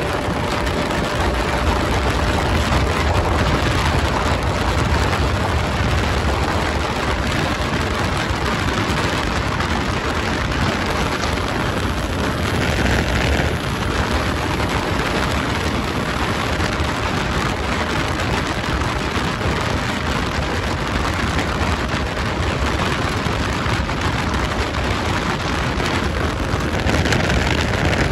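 Steady rush of wind over the microphone mixed with the single-cylinder engine of a Bajaj Pulsar RS200 riding at highway speed.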